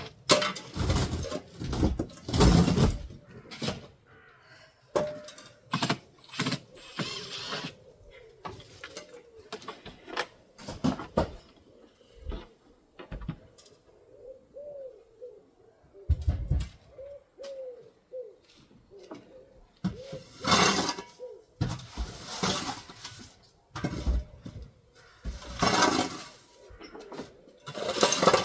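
Pieces of glass being knocked and pulled out of an old wooden window frame, with irregular sharp clinks, knocks and clatters of breaking glass. The loudest bursts come near the start and again towards the end.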